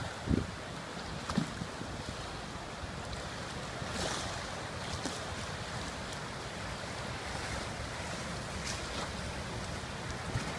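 Steady rushing hiss of a river swollen after a typhoon, with wind buffeting the microphone in a few low thumps near the start.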